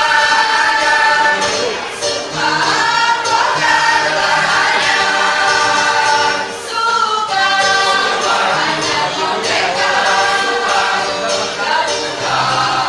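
A teachers' choir singing, long held notes with short breaks between phrases about two and six and a half seconds in.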